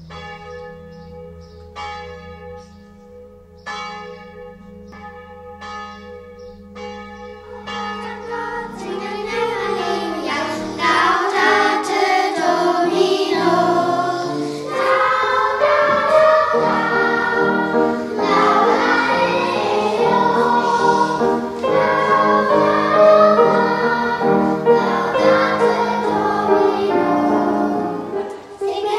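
Music: for about eight seconds, struck, bell-like notes about once a second ring over a sustained low chord. Then a children's choir begins singing with accompaniment and carries on to the end.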